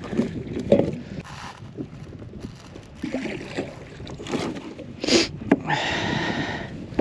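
Handling noise as a weakfish is unhooked from a jig inside a landing net in a kayak: rustling and scattered knocks and clicks, with a louder knock about five seconds in and a brief buzz near the end.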